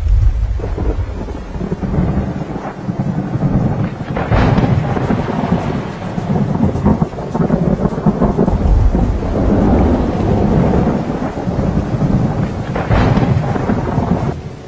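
Thunderstorm: rolling thunder rumbling continuously over rain, with louder, sharper claps about four seconds in and again near the end.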